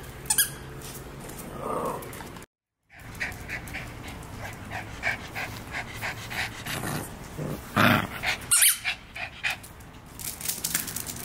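Yorkshire terrier panting in quick, even breaths after a brief cut, with one short louder sound about eight seconds in and light clicks near the end.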